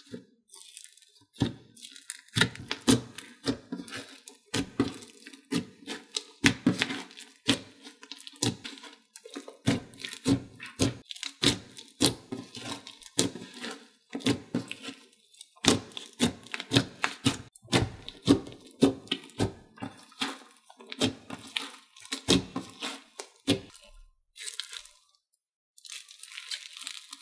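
Hands squishing, folding and stretching a slushy, clicky slime mixed with instant snow, making irregular crunchy crackles, clicks and squelches, with a few sparser, quieter crackles near the end.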